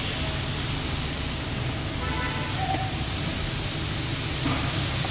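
Steady hiss over a low hum, with a few faint brief tones about two seconds in.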